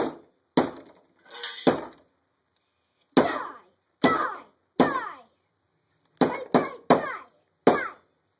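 Claw hammer striking an already smashed Kyocera Loft cell phone on a wooden workbench: about ten sharp blows at an uneven pace, some followed by a short ringing.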